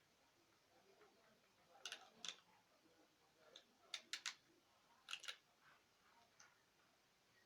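Faint sharp clicks and crackles in a few small clusters, typical of adhesive tape being pulled and wrapped around a bicycle frame to hold a plastic card.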